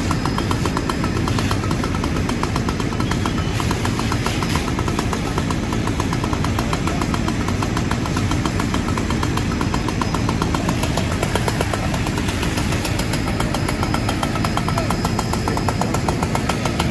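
Fire engine's engine running steadily with a fast, even rumble, driving the pump that feeds the hose line.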